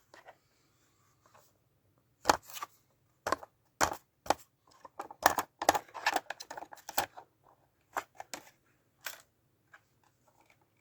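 Plastic detergent drawer from a Whirlpool AWM 1400 washing machine being handled, giving irregular sharp clicks and knocks of plastic, busiest in the middle.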